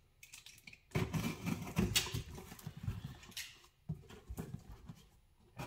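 Cardboard box flaps being pried open by hand: irregular scratching and rustling of cardboard with a few sharper clicks, dying away about a second before the end.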